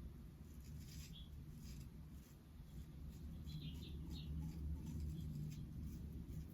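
Shavette razor blade scraping across lathered facial stubble in short, faint, scratchy strokes.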